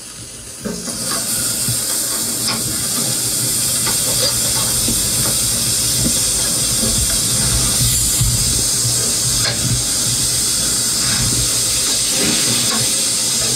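Steaks sizzling on a barbecue grill: a steady hiss that comes in about a second in and holds evenly.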